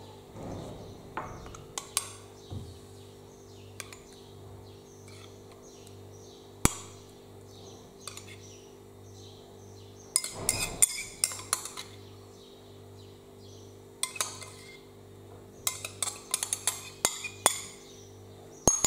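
Metal spoon clinking and scraping against a small glass bowl while cherry coulis is spooned out, in scattered clusters of clinks with a few single sharp taps.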